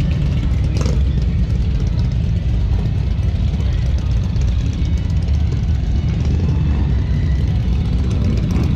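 Motorcycle engines running at idle in the street, a steady low drone, with voices in the background and a brief click about a second in.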